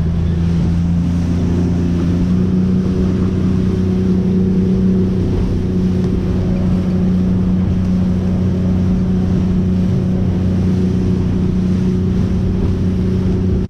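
Boat engine running at a steady speed, a loud, even low hum.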